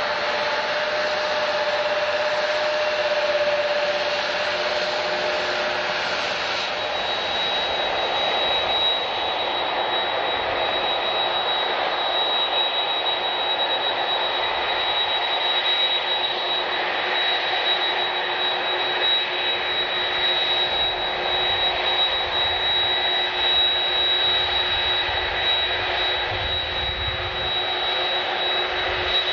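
Jet airliner's turbofan engines running: a steady rush with a high whine that sets in about seven seconds in and holds.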